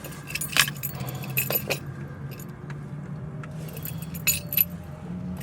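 Keys jangling in three short bursts, about half a second in, around a second and a half, and about four seconds in, over a steady low hum.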